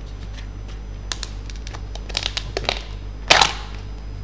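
Clear injection-moulded disposable plastic food container being handled: several sharp clicks and crackles of the thin plastic, the loudest crackle about three-quarters of the way through. A steady low hum runs underneath.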